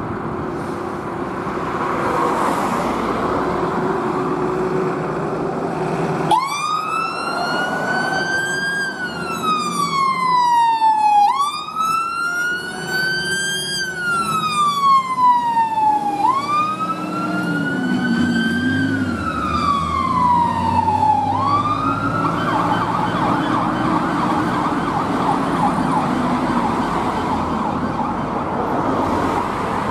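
A 2002 Volvo FL220 fire engine's diesel engine running as it pulls away. About six seconds in its siren starts a wail, rising and falling in slow sweeps about every five seconds, three times over. About 22 seconds in the wail breaks off into a rougher, buzzing siren sound as the engine drives off.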